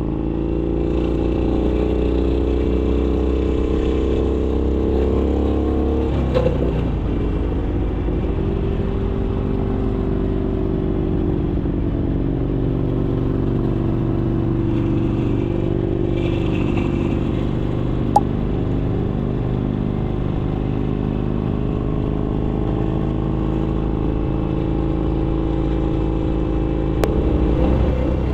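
Harley-Davidson Sportster Iron 883's air-cooled V-twin running under way through an RSD 2-into-1 sport exhaust. The engine note rises and falls with the throttle, and it changes briefly about six seconds in and again near the end.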